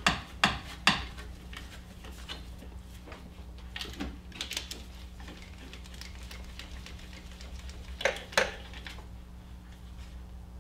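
Metal tool clinks of a ratchet and socket against the new alternator's mounting bolts as they are started: three sharp clinks about half a second apart at the start, a few softer ones around four seconds in, and two more sharp clinks near eight seconds. A steady low hum runs underneath.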